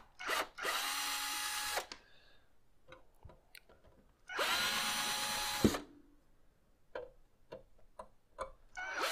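Cordless drill/driver backing Phillips screws out of a power supply's cover in short spurts: a brief blip, then two runs of about a second each, with small clicks and taps of handling between them. The motor winds down at the end of each run, and another run starts near the end.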